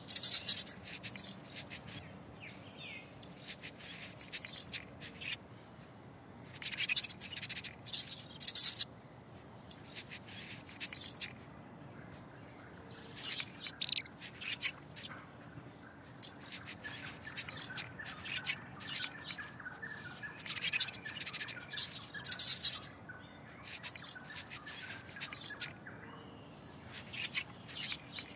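Rapid, high-pitched chirping in short clusters, each about half a second to a second and a half long, repeating every second or two over a faint steady background.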